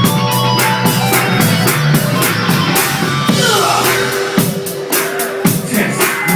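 Band music with a drum kit keeping a steady, even beat, loud throughout, with a gliding pitched line in the middle.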